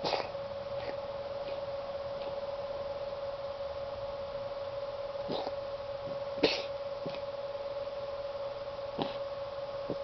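A pet coughing and hacking in short, separate bursts as she tries to clear her throat, the loudest cough about six and a half seconds in. A steady hum runs underneath.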